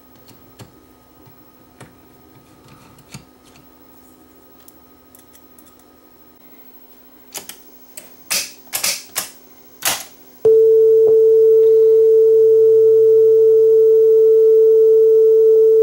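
A handful of sharp clicks as the cassette deck's front-panel controls are worked, then a loud steady sine test tone of about 400 Hz with a faint low hum under it, which sounds good: the deck's audio path is passing signal cleanly.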